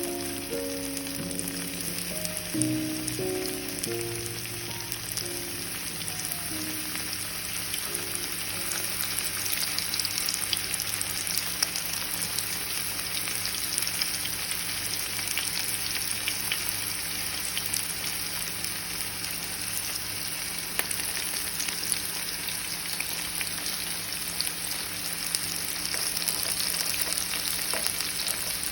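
Flour-coated tuna pieces deep-frying in oil: a steady sizzle with fine crackles. Background music notes fade out over the first several seconds.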